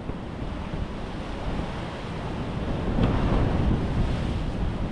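Sea waves washing in against a rocky shore, with wind buffeting the microphone. A wave surges louder about three seconds in.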